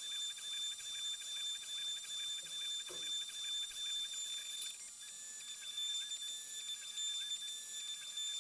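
Home-built CNC router's compact-router spindle cutting out a wooden bracket, with the sound sped up ten times into a steady high-pitched whine. From about halfway through, a quick repeating chirp joins it.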